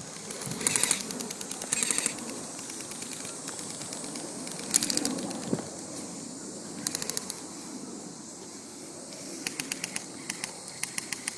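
Airsoft guns firing in several short automatic bursts, each a rapid run of sharp ticks, over a background of wind and movement.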